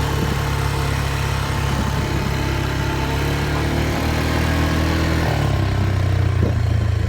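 ATV engine running steadily at low speed, its pitch shifting slightly about four seconds in and again about a second later.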